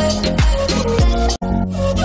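Background music with a steady beat and deep bass drum hits. It cuts off abruptly about a second and a half in, and a different tune starts.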